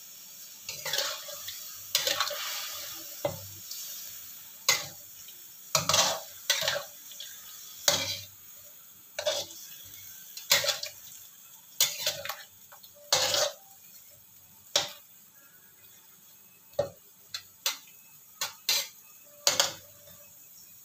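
A spatula stirring chicken in soy-sauce broth in a cooking pan, scraping and clinking against the pan at uneven intervals, about once a second.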